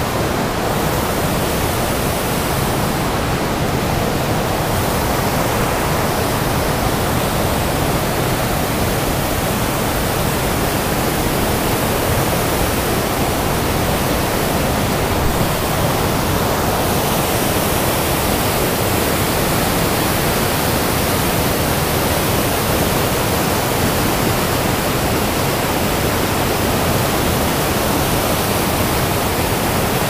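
Waterfall whitewater rushing down a rock chute, heard up close: a loud, steady, unbroken rush of water.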